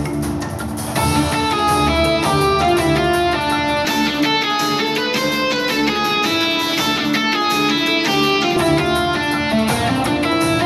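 Instrumental video game music led by guitar, played back through small desktop speakers and recorded through the air. The playback switches from one speaker to the other partway through and back again.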